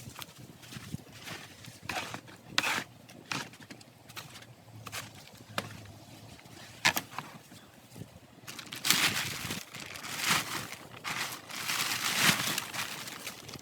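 Handling noise: irregular knocks, clicks and scrapes, then denser rustling and scraping in the second half, as covers and gear are taken off a tractor.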